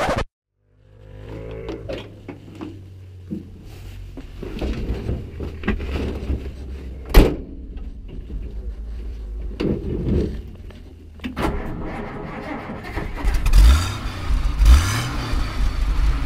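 A 1957 Willys pickup's Hurricane six-cylinder engine running, heard from inside the cab, with a single sharp clunk about seven seconds in and two short revs near the end.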